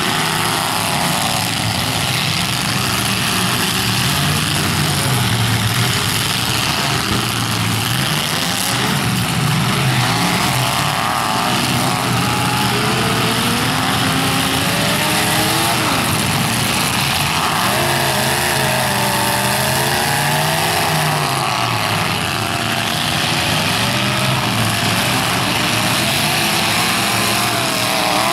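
Several demolition-derby pickup trucks' engines running and revving at once, their pitches rising and falling as they drive and push against each other.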